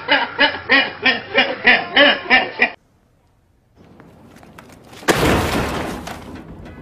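A man laughing hard in quick rhythmic bursts, three or four a second, cut off abruptly. After a short silence, a loud sudden crash as a computer is thrown into a metal dumpster, smashing and dying away over about a second.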